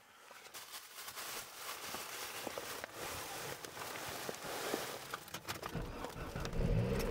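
Wind with snow or sleet pattering against a vehicle's windshield and body, a noisy rush full of small sharp ticks that grows louder. About six seconds in, a low steady hum joins it.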